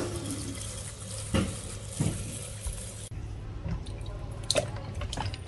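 Water pouring from a tap into a plastic basin while fresh ginger is rinsed and rubbed by hand. The stream stops about three seconds in, leaving splashing and sloshing as the ginger is scrubbed in the standing water.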